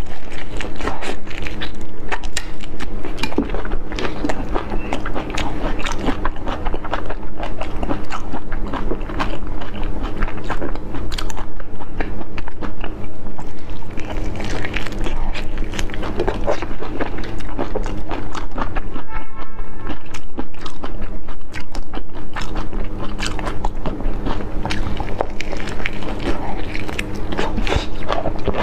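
Close-miked eating of whole shell-on shrimp in chili marinade: wet biting, sucking and chewing with many small irregular crunchy clicks as the shells are bitten through.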